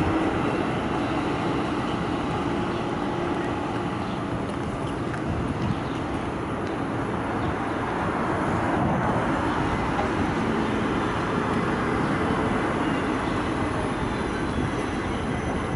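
Duewag-built city trams running on street tracks: one pulling away and another passing close by. A steady rumble of wheels on rails under general street noise.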